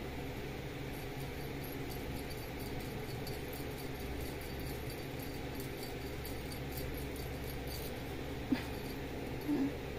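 Steady low room hum, then two short mews from a kitten near the end, about a second apart.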